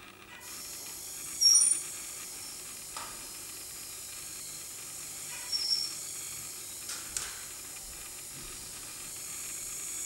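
A steady high hiss that starts suddenly about half a second in, with short high squeaks about a second and a half in and again a little past five seconds, and a few faint clicks later on.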